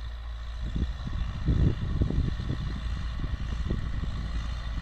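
Massey Ferguson 3060 Super tractor's diesel engine running steadily at a distance while it works a tilled field, with irregular low buffeting over it.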